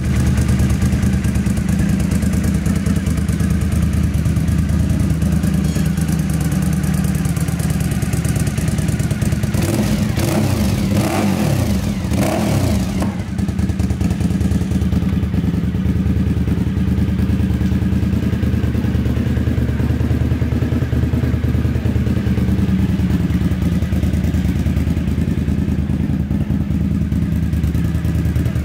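Suzuki TL1000S's 90-degree V-twin engine idling steadily, with one brief rev about ten seconds in that rises and falls back to idle over a few seconds.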